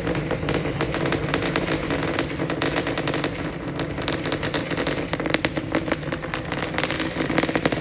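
Rumble of a SpaceX Starship's Super Heavy booster climbing on its 33 Raptor engines, heard from a distance: a continuous low roar full of rapid, irregular crackling pops.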